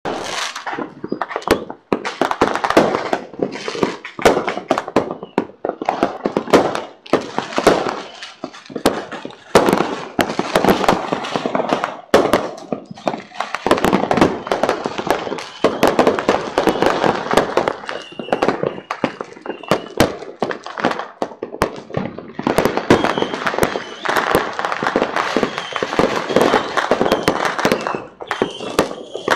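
Fireworks and firecrackers going off in a dense, unbroken barrage of sharp cracks and bangs over a steady crackle.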